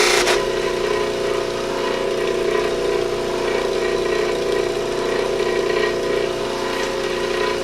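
Electric buffing machine running steadily with a hum, its wheel spinning freely. A loud hiss of antler pressed against the compound-loaded wheel cuts off a fraction of a second in.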